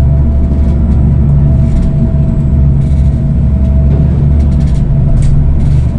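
Passenger ferry's engines droning steadily with a deep hum and a faint steady whine, over water rushing and splashing along the hull in the wake.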